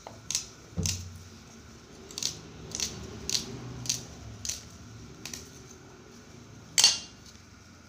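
Small knife slicing through an onion held in the hand, a short crisp cut about every half second, with one louder clack near the end.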